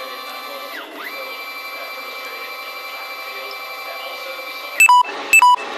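Stepper motors of a CNC-converted Optimum BF20L mill whining steadily while driving an axis move; about a second in the pitch drops and glides back up as the motion slows and speeds up again. Near the end, two short, loud electronic beeps half a second apart.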